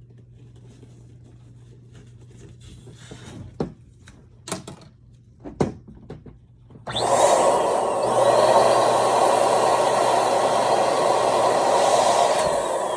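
A few short clicks and rubs as balloons are handled, then about seven seconds in an electric balloon pump switches on and runs steadily, blowing up a small latex balloon.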